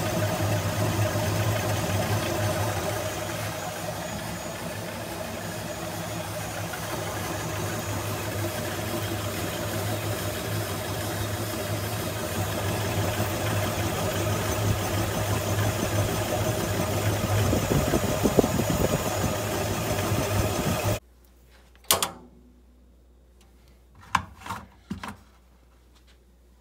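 Electric drill driving a honey extractor's spinning basket of frames: a steady motor drone that cuts off suddenly about three-quarters of the way through, followed by a few faint short sounds.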